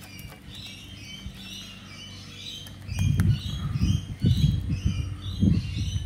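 Wild birds chirping and calling in short repeated notes. From about three seconds in, loud irregular low thumps and rumbles come over the top.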